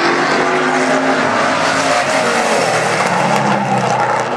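Street stock race car engine running hard on a qualifying lap, its pitch dropping about two seconds in and then holding lower.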